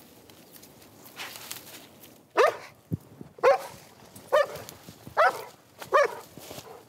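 Game warden's detection dog barking five times, about one bark a second, starting a couple of seconds in: a bark alert on the hidden shotgun it has found in the brush.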